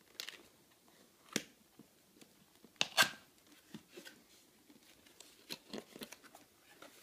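A cardboard box being opened by hand: scattered faint scrapes, taps and rustles as the tuck flap is pulled out and the lid folded back, the sharpest about three seconds in.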